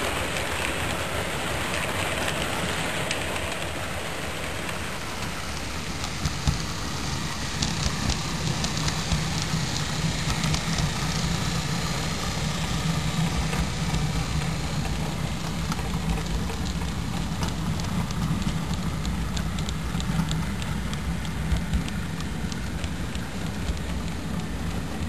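HO-scale double-stack model train running along the track: a steady rolling rumble with a low hum, and from about six seconds in, many light irregular clicks of the wheels on the rails.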